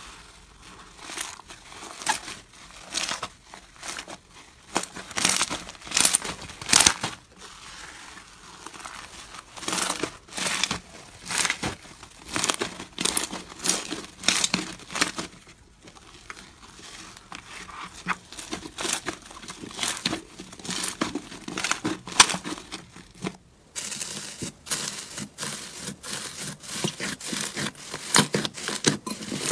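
Hands squishing, stretching and pressing slime in a plastic tub, making irregular sticky crackles and pops.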